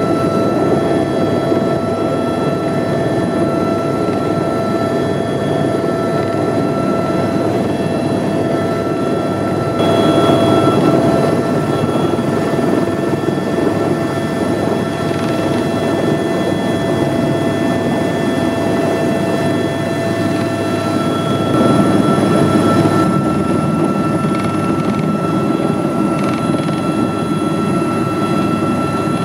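Airbus helicopter's turbine engine and rotor running, heard from inside the cabin: a steady whine of several held tones over a dense rumble. It swells briefly about ten seconds in.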